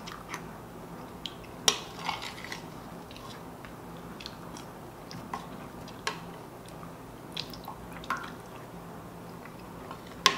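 A spoon clinking and scraping against a ceramic bowl of milk every few seconds, fishing out the last floating pieces of cereal, with soft chewing in between. The sharpest clink comes near the end.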